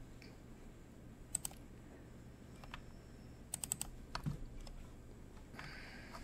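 Scattered clicks of computer keys: a pair a little over a second in, a quick run of four about three and a half seconds in, then single clicks, over a faint steady hum.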